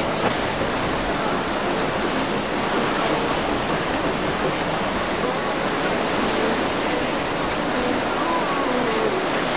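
Steady rush of breaking waves and churning water in rough seas.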